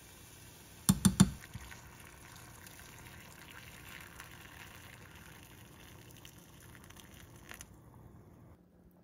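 Three quick knocks of a spoon against the pot about a second in. After them comes a steady pour of anchovy broth into the pot over bean sprouts, stopping about two thirds of the way through.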